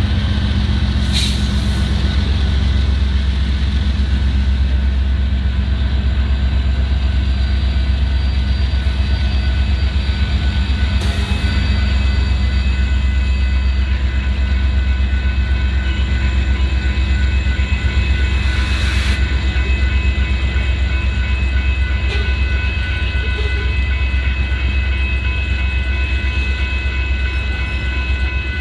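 A Union Pacific freight train rolling past: a diesel locomotive goes by at the start, then a string of covered hopper cars with a steady heavy rumble. Three sharp knocks come from the train along the way.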